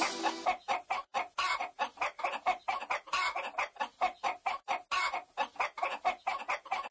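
A rapid series of short clucking sounds, about five or six a second, uneven in spacing and loudness, much quieter than the music around it.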